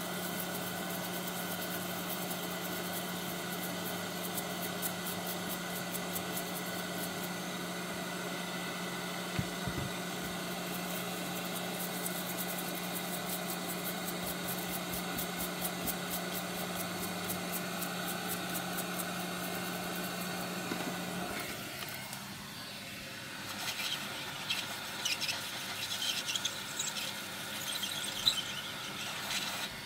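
Hot air rework station's fan running steadily, a constant low hum under an airy hiss, cutting off suddenly about two-thirds of the way through. After that come small knocks and rubbing of tools being handled on the bench mat.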